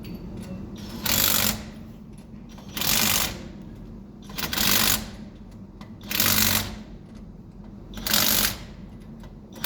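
Ford Grand Marquis 4.6-litre V8 idling as a steady low hum, the engine misfiring on cylinders 1, 2 and 6. Five loud hissing bursts, each about half a second long, come every one and a half to two seconds.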